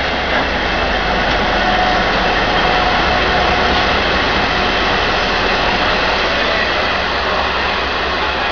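TRA R66 diesel-electric locomotive passing slowly at close range with its engine running, followed by its blue passenger coaches rolling by on the rails: a steady heavy rumble.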